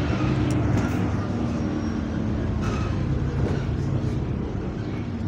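Bus engine and radiator cooling fan running steadily, a constant drone heard from inside the passenger saloon, with a few light rattles.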